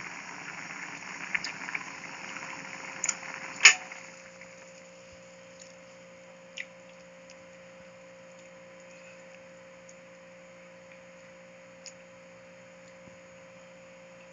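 Pot of papaitan (beef offal soup) boiling with a steady bubbling hiss. About four seconds in, a sharp click and the hiss stops, leaving a steady low hum with a few faint ticks.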